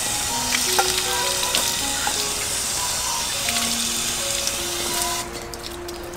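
Water running from an outdoor tap and splashing as a basket of produce is rinsed under it, a steady hiss that cuts off about five seconds in.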